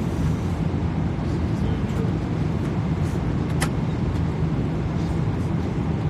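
Steady low rumble of an airliner cabin: engine and airflow noise. A single sharp click sounds about three and a half seconds in.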